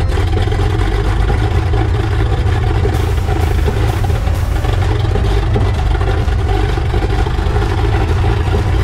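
Single piston engine and propeller of a Cessna 182S SkyLane running steadily, heard as a dense low drone. A faint tone climbs slowly in pitch through the second half. The sound comes through the aircraft's intercom feed.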